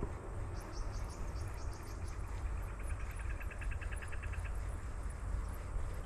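Insects chirping in two short, rapidly pulsed trills, a higher one near the start and a lower, faster one about three seconds in, over a steady low rumble.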